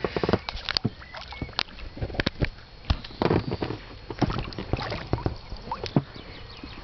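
Hooked wels catfish splashing and swirling at the water surface beside a boat, with irregular sharp splashes and knocks.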